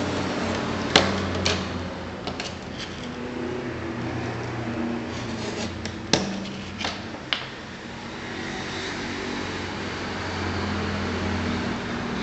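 A few sharp clicks and knocks, the loudest about a second in and about six seconds in, as sandpaper is cut with a snap-off utility knife along a steel ruler and handled on a wooden workbench. A steady low hum runs underneath.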